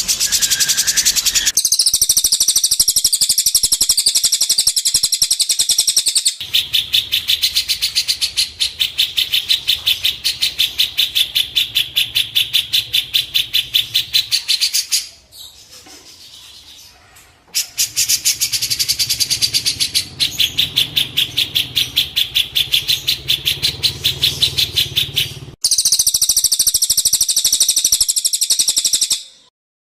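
Songbird song played as a training recording: long bouts of fast, evenly repeated high chirps that start and stop abruptly, with a faint low hum under some bouts. There is a quieter break about halfway, and the sound cuts off suddenly just before the end.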